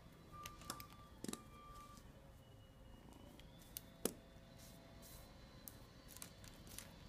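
Faint, scattered light clicks and taps of kittens' paws batting at a ballpoint pen and a spiral notebook on a wooden desk, a few close together near the start and a sharper click about four seconds in.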